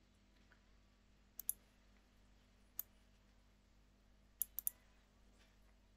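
Computer mouse buttons clicking: two close together about a second and a half in, one near three seconds, and a quick run of three about four and a half seconds in, over a faint steady hum.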